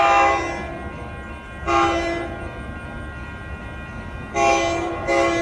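Air horn of an approaching Metra commuter train sounding a chord in four blasts: one ending just after the start, one about 2 seconds in, a short one about 4.5 seconds in, and another starting near the end. This is the long-long-short-long warning for a grade crossing.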